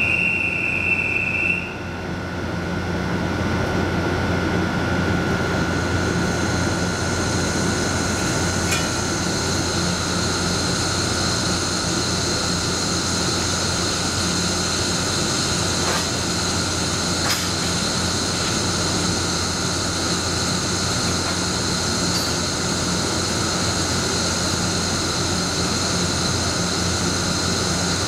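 Stationary electric locomotive humming steadily with its auxiliaries running, a higher steady whine joining about five seconds in. A brief high tone cuts off in the first two seconds, and there are a few faint clicks.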